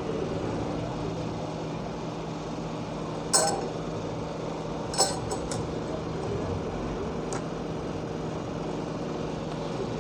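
A few sharp clinks of small repair tools against hard phone parts, three in all spread over several seconds, over a steady background hum.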